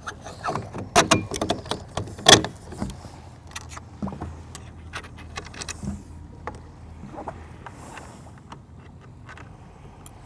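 Small metal hardware clicking and clinking as a bolt, washer and wing nut are fitted by hand to a metal lee board bracket. A cluster of sharp clicks comes in the first three seconds, then sparser taps.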